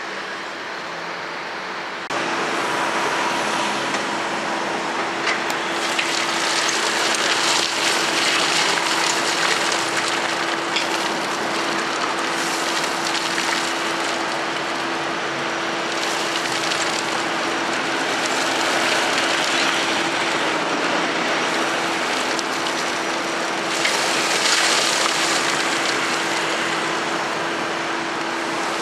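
Tipper truck's engine running steadily with a constant hum while its hydraulics raise the loaded dump body. The hum steps up in loudness about two seconds in.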